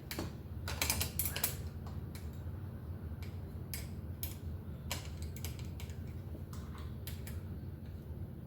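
Irregular light clicks and taps of tools and metal parts being handled while a cantilever brake arm and pad are fitted and adjusted on a bicycle, over a steady low hum.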